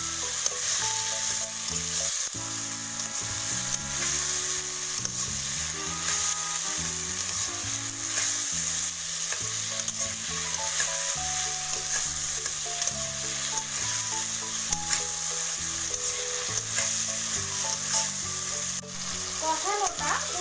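Spice paste and tomato paste frying in hot oil in a pan, sizzling steadily as it is stirred. Soft background music plays underneath.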